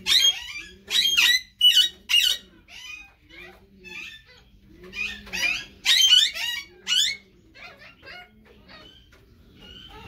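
Caged aviary birds calling in bursts of loud, shrill squawks and chatter, busiest between about five and seven seconds in, with faint low calls repeating underneath.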